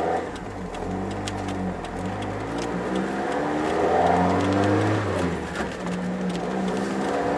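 Mazda NA Roadster four-cylinder with individual throttle bodies and a new Car's CP1 exhaust, pulling up through the gears at modest volume. The engine note climbs, drops back at a shift, and climbs again twice. It is heard from inside the closed cabin, where the intake noise from the front carries more than the exhaust.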